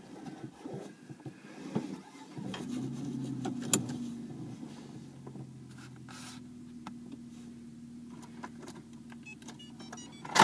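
A steady low mechanical hum inside a parked 4x4's cab starts about two and a half seconds in and runs on, with scattered small clicks and knocks and one sharp click near the end.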